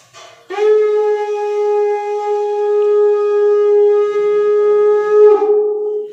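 Conch shell (shankha) blown in one long steady note, marking the aarti. It starts about half a second in, is held about five seconds, then breaks and trails away.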